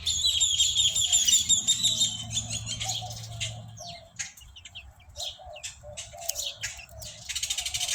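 Backyard bird noise: wild birds chirping rapidly and high for the first few seconds, with chickens clucking softly throughout and scattered light clicks.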